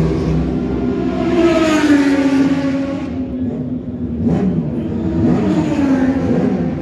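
Racing motorcycle engines revving on a circuit. The pitch climbs and falls about two seconds in, and again several times later on.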